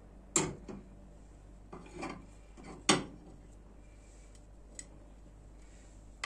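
A serving spoon knocking and scraping against bowls as chopped salad vegetables are spooned and tipped into a large mixing bowl: a handful of short clinks and scrapes, the loudest just under three seconds in.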